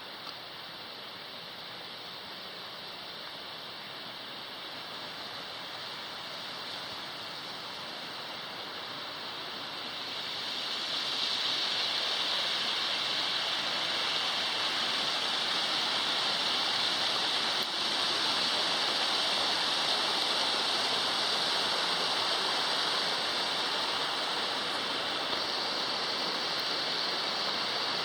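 Waterfall rushing steadily, its rush growing louder about ten seconds in and then holding steady.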